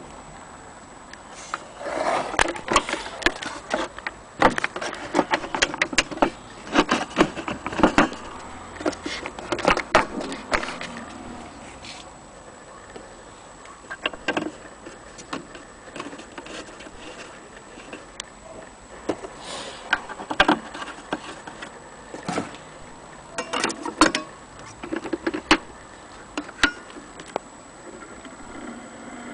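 A wooden gramophone cabinet being handled, with irregular clusters of knocks, clicks and rattles from its wood and metal fittings. They are busiest in the first ten seconds and again about two-thirds of the way through.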